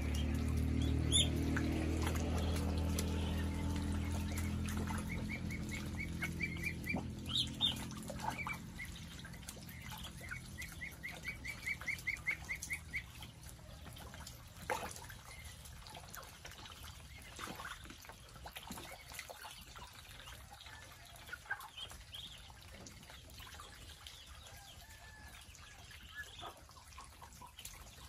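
A pen of ducklings, ducks and chickens: scattered high chirping calls, including two quick runs of chirps, with small splashes and pecking clicks as ducklings dabble in a shallow water tray. A low droning hum fades out over the first several seconds.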